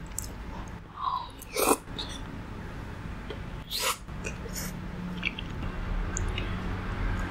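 Close-miked eating: a few sharp crunchy bites and chewing, about two seconds apart, over a steady low rumble that grows louder near the end.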